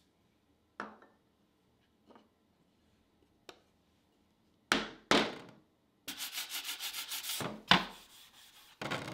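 Hands working a small wooden block against a walnut case rim and rubbing across a wooden workbench. There are a few light taps, two sharp scrapes about five seconds in, then quick back-and-forth rubbing and a single loud knock near the end.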